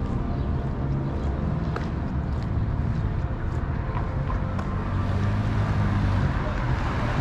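City street traffic: a steady low rumble of vehicles passing, getting louder near the end as a vehicle comes closer.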